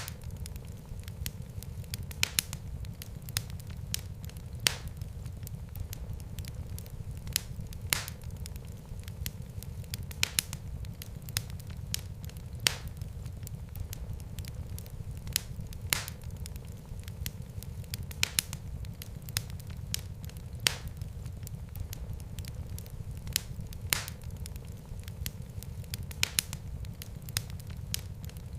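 Fire crackling in a fireplace: irregular sharp pops and snaps over a steady low rumble of the flames.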